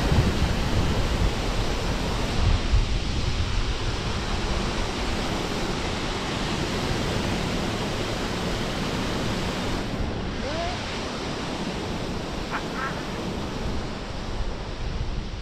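Water gushing through the lock's gates and churning into the pool below: a steady rush of noise.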